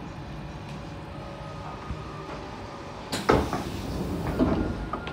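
Siemens C651 train's pneumatic passenger doors opening at a station stop: a sudden hiss about three seconds in, then the door panels sliding open and knocking to a stop, over the steady hum of the train.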